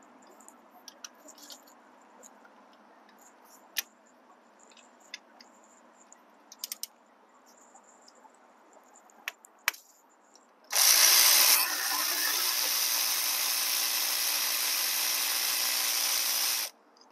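Faint clicks and taps, then about ten seconds in a cordless electric ratchet on a socket extension runs, loudest for its first second, then a steady whir for about six seconds before it stops abruptly: it is backing out the last 12 mm bolt holding the CVT transmission fluid cooler.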